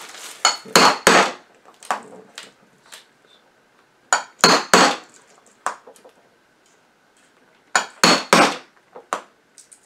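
A hammer driving a hole punch through leather: loud, sharp knocks, mostly in quick groups of three with single lighter taps between.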